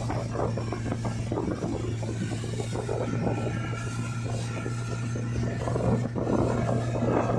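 Outboard motor of a towing motorboat running steadily at speed, a constant low hum, under the rush and splashing of the churned wake and wind on the microphone.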